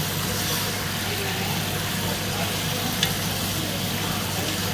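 Meat sizzling as it fries in a granite-coated pot, stirred with a wooden spoon, over a steady low hum. A single sharp click about three seconds in.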